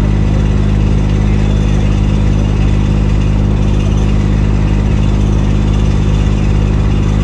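An engine running steadily at a constant idle, loud and unchanging, with no revving.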